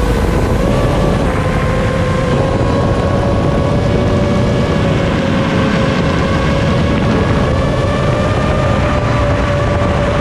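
5-inch FPV quadcopter's motors and three-blade props running at a steady cruise: one sustained whine that edges slightly up in pitch, over a rush of wind noise.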